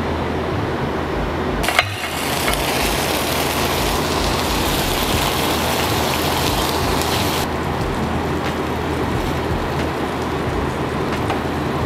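Skinned breakfast sausages sizzling in oil in a frying pan as they brown. A click about two seconds in, after which the sizzle turns brighter for several seconds before easing back.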